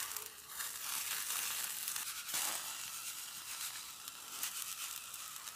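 Butter-basted trout sizzling on a wire grill grate over a wood fire: a steady hiss with a few faint pops.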